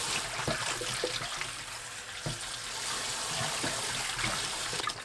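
Kitchen tap running into a stainless steel bowl in the sink as green garlic stalks are rinsed by hand, with a few short splashes and light knocks as the stalks are moved in the water.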